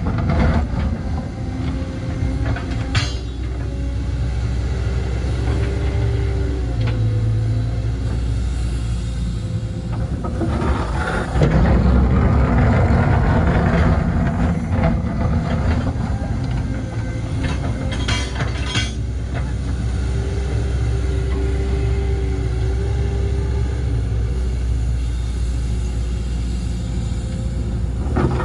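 Excavator digging a trench in clay: its diesel engine runs with a steady low rumble while the hydraulics work the boom and bucket, a whine under it shifting in pitch as the arm moves. A few short knocks come about three seconds in and twice near the middle.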